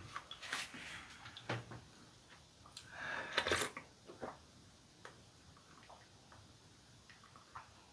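Quiet eating sounds: a few small mouth clicks while chewing, then a short sip from a mug about three seconds in.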